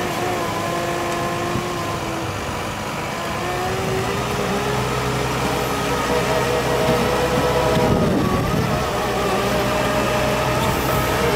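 Diesel engine of a HUDDIG 1260C backhoe loader on Soucy rubber tracks, working under load as the machine pushes soil with its front bucket. Its pitch shifts and it gets louder as it goes.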